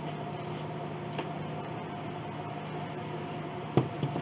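A steady mechanical hum, like a fan or motor running. Near the end come two light, sharp knocks.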